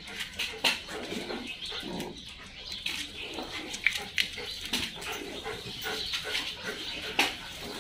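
Several dogs jostling and sniffing at close quarters, with panting and snuffling. Scattered short clicks and scuffs run throughout.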